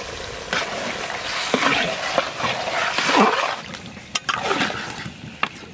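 Lote fish (Bombay duck) sizzling in hot mustard-oil spice paste in a large kadai and being stirred, with the spatula scraping and knocking against the pan a few times.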